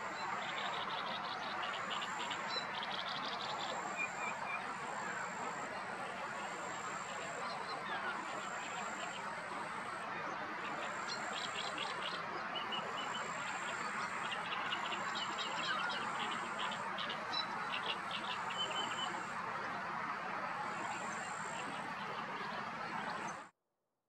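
Outdoor birdsong ambience: small birds chirping and trilling in short bursts, and a thin, high note repeated about once a second, over a steady rushing background. It all cuts off suddenly near the end.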